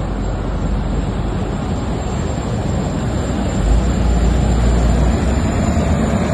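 High-speed ferry Rocket 2 running at speed, a steady mechanical rush with a thin high whine over it; the deep rumble grows heavier a little past halfway.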